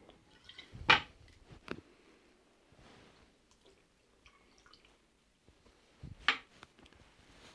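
Cachaça poured from a steel jigger into a glass of muddled lime, a faint trickle, between sharp knocks of the bottle and metal jigger being handled and set on a wooden bar counter. The loudest knock comes about a second in, a lighter one shortly after, and another about six seconds in.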